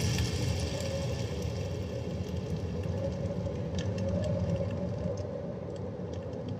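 Low, steady rumble of heavy truck engines running, easing slightly, with a few faint clicks over it.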